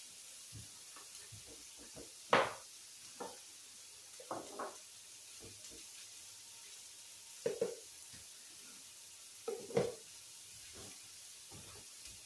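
Thin chicken breasts sizzling faintly on an indoor countertop grill, with metal kitchen tongs clacking against the grill and counter several times. The loudest clack comes about two seconds in.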